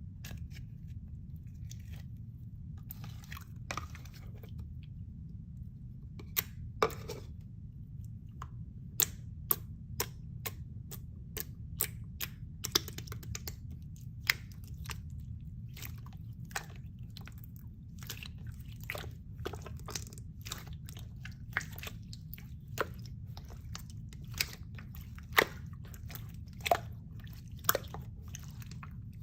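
Slime being squeezed and worked by hand, giving irregular sharp pops and crackles, sparse at first and coming thick and fast from about nine seconds in, over a low steady hum.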